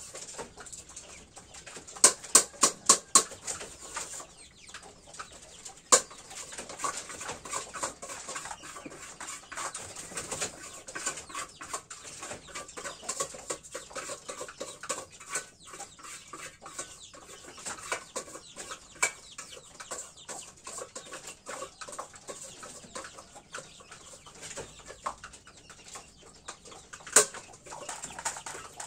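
Chickens clucking and pecking feed from a metal tray, beaks tapping on the metal in a steady scatter of light clicks. A quick run of about six sharp taps comes about two seconds in, and single loud taps later on.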